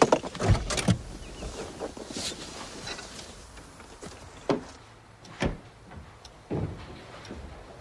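Car door opened as a person climbs out of a parked car: two heavy thuds and clicks within the first second, then a few more single knocks spaced about a second apart.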